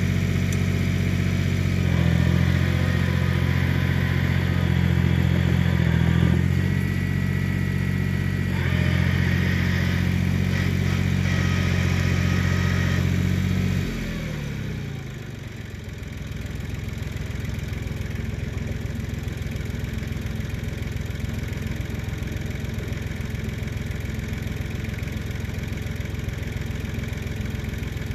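Iseki TL2500 tractor's diesel engine running at high revs, then throttled back about halfway through: the pitch falls over a couple of seconds and it settles to a steady, quieter idle.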